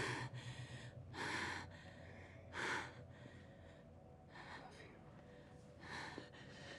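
A person's heavy, sharp breaths close to the microphone, a handful of them spaced about a second and a half apart, the loudest just under three seconds in.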